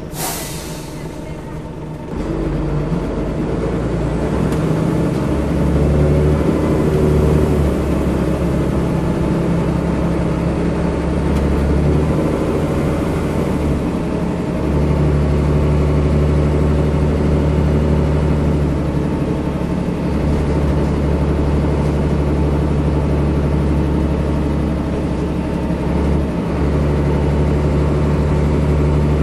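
Diesel engine of a single-decker bus heard from the rear seats inside the saloon: a short burst of air hiss at the start, then about two seconds in the engine pulls away under load and runs steadily, its note shifting a few times along the way.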